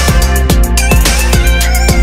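Loud electronic background music with a steady driving beat.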